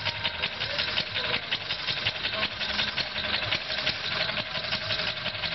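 Replica 1885 Daimler Reitwagen's single-cylinder engine idling steadily with a rapid, even beat.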